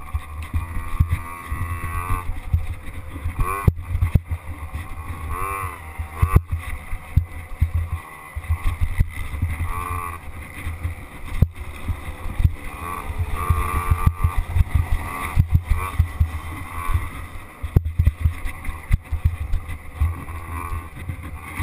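Small dirt bike engine running on a trail ride, its pitch rising and falling every few seconds as the throttle is worked, over a heavy buffeting rumble on the microphone and occasional sharp knocks.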